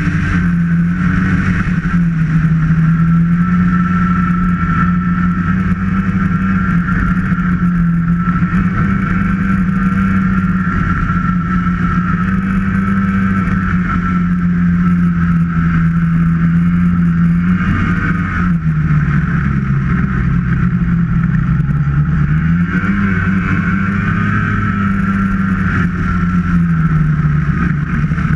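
Snowmobile engine running steadily under way, with a steady high whine above it. About two-thirds of the way through, the engine note drops as the sled slows, then rises again as it speeds back up.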